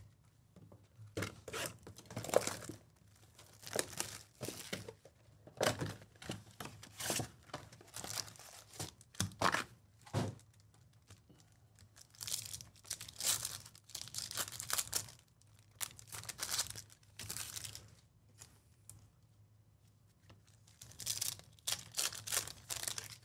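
Trading-card pack wrappers being torn open and crinkled, in irregular bursts of rustling with short pauses between.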